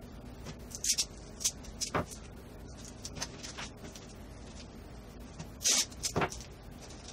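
Paper strips and masking tape handled on a wooden workbench, played back at four times speed: scattered short rustles, taps and scrapes. Near the end comes a louder rip as tape is pulled off the roll.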